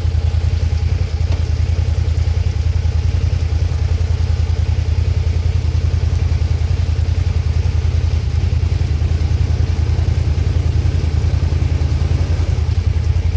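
ATV engine running at a steady low rumble, the revs holding even with no rise or fall.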